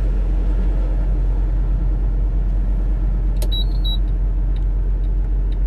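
Steady low road and engine drone heard inside a moving car's cabin while driving. A single sharp click sounds about three and a half seconds in.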